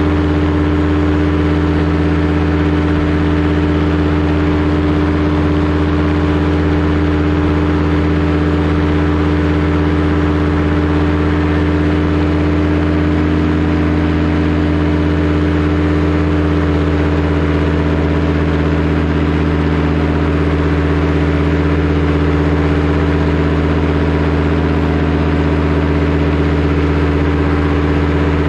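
Powered paraglider's paramotor engine and propeller running at a steady, unchanging pitch.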